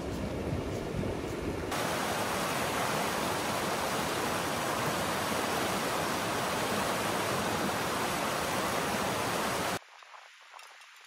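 Shallow mountain stream rushing over stones close by, a loud, even rush of water. In the first couple of seconds wind rumbles on the microphone over more distant rapids. Near the end the rush cuts off suddenly to much quieter surroundings.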